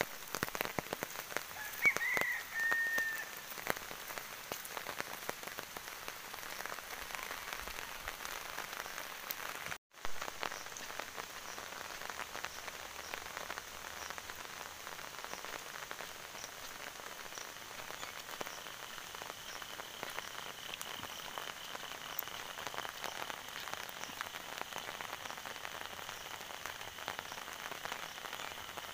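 Steady rain falling on a paved road and roadside vegetation, with many individual drops ticking through the hiss. A short high whistle-like call sounds about two seconds in, and the sound cuts out for a moment near ten seconds.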